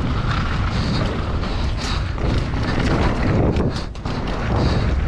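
Enduro mountain bike descending a rocky dirt trail at speed, heard from a camera on the rider: tyres crunching over loose gravel and the bike rattling over bumps, over a steady rumble of wind on the microphone. The noise dips briefly just before four seconds in.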